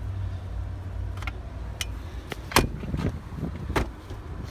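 Several separate sharp clicks and knocks from handling the fold-down rear seats of an SUV, the loudest a little past halfway, over a steady low rumble.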